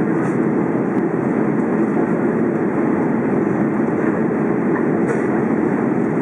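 Steady cabin noise inside an Airbus A330 climbing after takeoff: its jet engines and the airflow over the fuselage heard from a seat by the wing, a constant low rumble.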